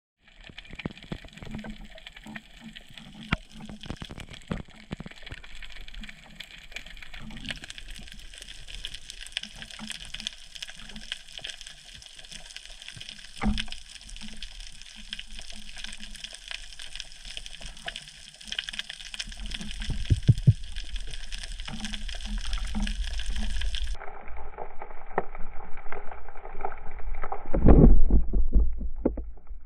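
Water noise heard through an underwater camera housing while spearfishing: a steady wash full of small crackling clicks and soft pulsing swishes. A low rumbling water sound builds from about two-thirds of the way through and is loudest just before the end.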